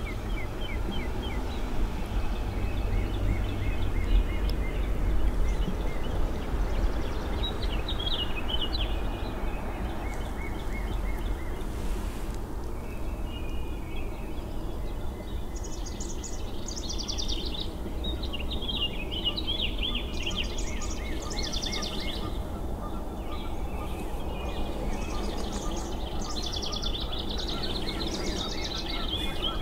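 Outdoor ambience of songbirds singing in short repeated chirping phrases, busiest in the second half, over a steady low rumble.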